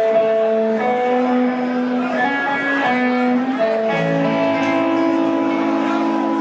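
Punk rock band playing live: electric guitars, bass and drums, with a melody of held notes changing pitch every half second or so.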